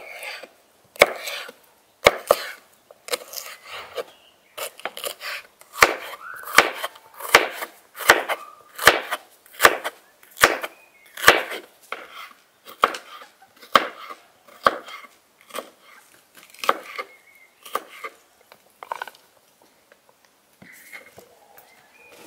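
Kitchen knife slicing a green bell pepper on a wooden cutting board: sharp knocks of the blade reaching the board, about one or two a second, which thin out and stop a few seconds before the end.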